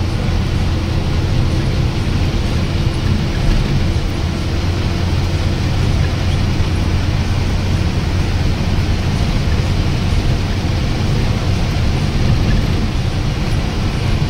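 Bus engine running at highway speed with road and wind noise, heard from inside the driver's cab: a steady low drone with a faint higher hum that fades out about halfway through.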